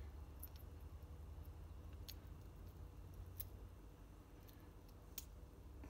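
A few faint, sharp clicks of small metal and plastic parts being handled as a brake master cylinder's lever perch, bolt and washer are fitted by hand, over a low steady hum.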